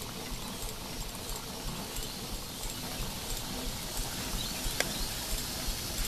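1910 Marshall portable steam engine running, its single cylinder and valve gear keeping up a steady rhythmic beat over an even hiss. A sharp metallic clink comes near five seconds in.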